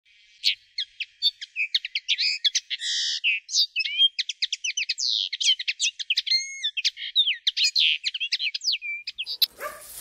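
A songbird singing a fast, varied song of chirps, trills and slurred whistled notes, all high-pitched. Near the end the song breaks off and gives way to a soft rushing noise.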